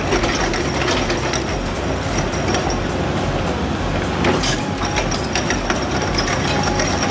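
Heavy earthmoving machine working: a diesel engine running under load over steady clanking and crunching, with scattered knocks.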